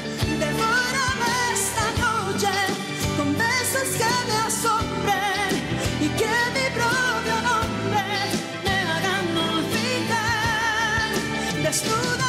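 Female singer singing a Spanish-language pop ballad live with a band of keyboard, electric guitar and bass, holding notes with a wide vibrato.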